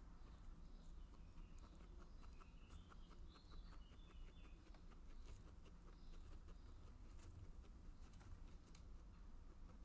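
Guinea pig chewing corn leaves: faint, irregular crisp clicks and crunches over a low steady hum.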